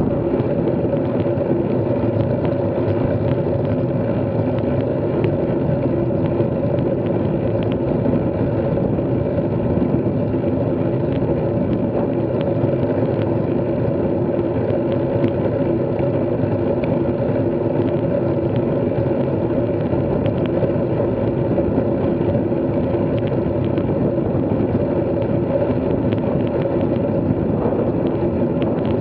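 Steady riding noise from a bike in motion: a continuous hum holding one pitch over an even rush of road and wind noise.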